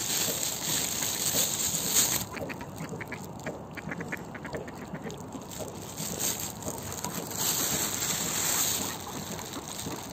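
Mallard ducks calling on the water: a quick run of short quacks from about two to five seconds in.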